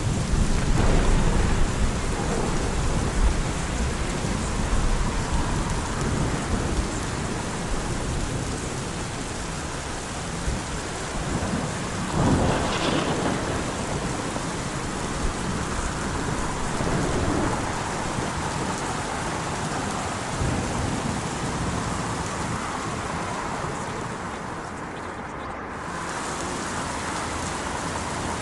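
Rainstorm ambience: a steady hiss of heavy rain with low rolling thunder, the rumble heaviest in the first few seconds.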